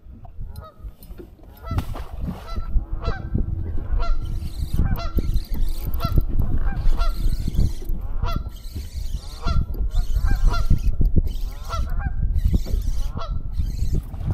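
Geese honking over and over, about one call a second, over a steady low rumble that sets in about two seconds in.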